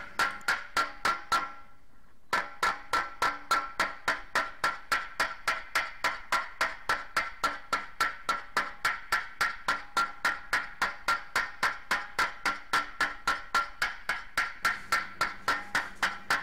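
Rapid, even hammer blows on the sheet-metal lid of a BSA motorcycle toolbox, about four a second, each with a short metallic ring. This is panel beating to knock out dents. The hammering pauses briefly about two seconds in, then carries on at the same pace.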